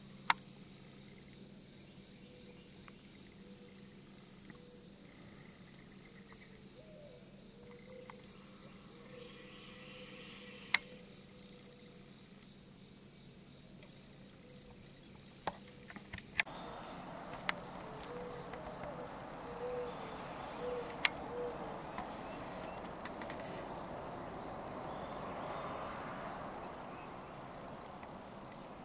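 Steady, high-pitched insect chorus droning without a break, with a few sharp clicks scattered through it and a broad hiss that grows louder about halfway.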